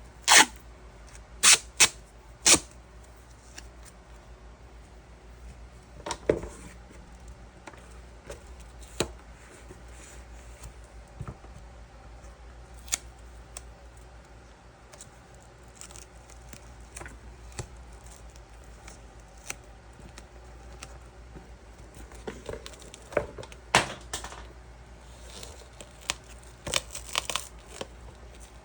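Tape ripping in short, sharp pulls: several loud rips in the first few seconds and another cluster near the end, with scattered small clicks and handling noises between.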